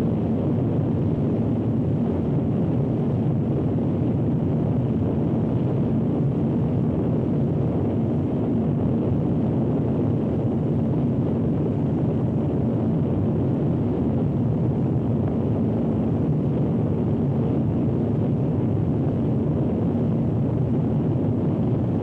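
Deep, steady roar of a large waterfall: an unbroken rush of heavy falling water.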